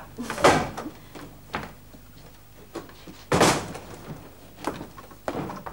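A wooden door being opened and shut: a series of separate knocks and clunks, the loudest one about three and a half seconds in as it closes.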